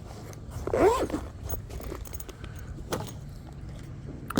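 Small gear being handled in a backpack: light rustling with a few small clicks and a sharp click near the end.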